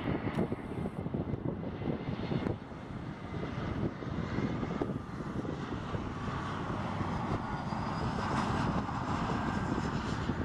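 An Embraer E175 regional jet on short final, its twin turbofan engines running at approach power and growing slightly louder as it comes in, with a whine building in the second half. Wind buffets the microphone.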